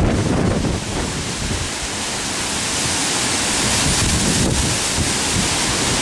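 Strong gusting wind rushing through leafy trees, with wind buffeting the microphone as a low rumble. The rush of leaves swells louder about halfway through.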